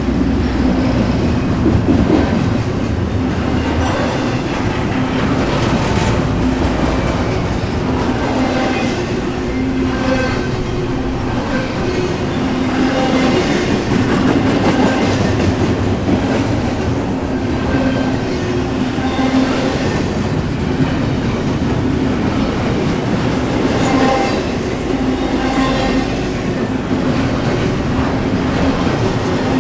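Intermodal container freight train rolling past: a steady loud rumble of steel wheels on rail, with recurring clicks as the wheels cross rail joints.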